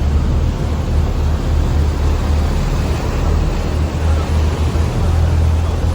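Sightseeing boat's engine running with a steady low drone, under a loud, even rushing hiss of wind and water.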